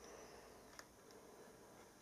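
Near silence: room tone, with a faint click a little under halfway through.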